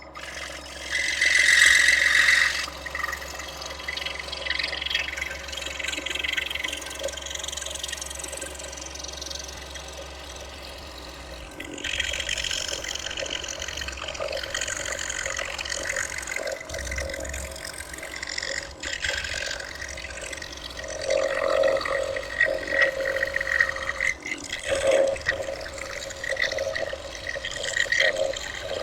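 Scroll saw running, its blade cutting through half-inch pine with a continuous, uneven rasping noise. About twelve seconds in, a low steady hum stops and the cutting sound changes.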